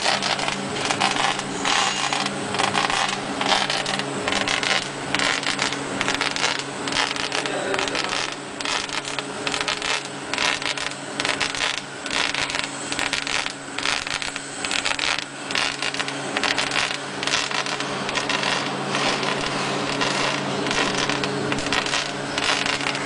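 POSSIBLE PBLE-1290 CO2 laser engraving machine engraving glass: rapid, irregular clicking and crackling over a steady low hum.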